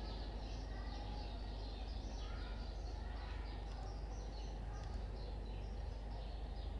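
Birds chirping: many short, overlapping high calls, over a steady low hum.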